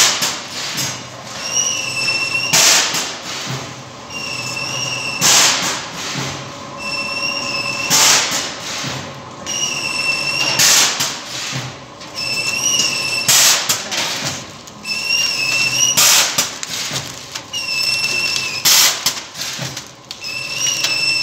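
Automatic vertical powder packing machine with an auger filler running through its packing cycle, about once every two and a half to three seconds. Each cycle brings a short loud burst of noise, then a brief wavering high whine, over a steady low hum.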